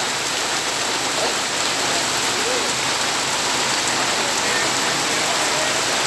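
Heavy rain falling steadily, a dense even hiss, with faint voices now and then.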